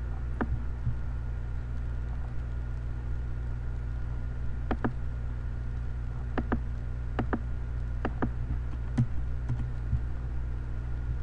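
Computer mouse clicking, about a dozen sharp clicks, most of them in quick pairs, one near the start and a run from about five to ten seconds in. A steady low hum runs underneath.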